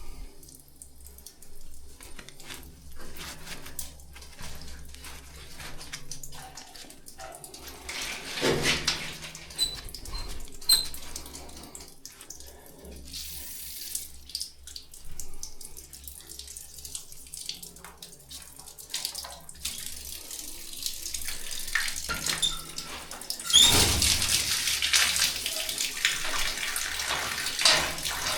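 Water running out of a drain opened on the irrigation supply line, bleeding off pressure so the system can be drained; scattered knocks and handling sounds at first, then about 23 seconds in the flow turns into a much louder, steady rush.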